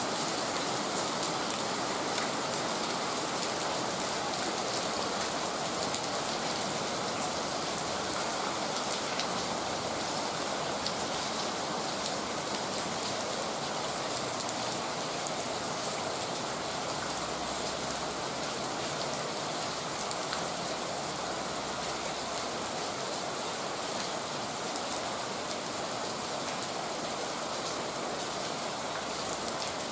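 Heavy rain falling steadily, a dense even hiss of rain on surfaces with many small drop impacts.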